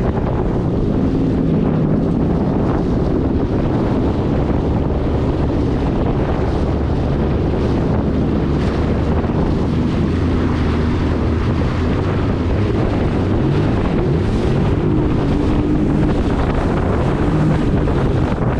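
Yamaha EX Sport WaveRunner's 1049 cc three-cylinder four-stroke TR-1 engine running steadily underway, with heavy wind buffeting the microphone and water rushing past the hull.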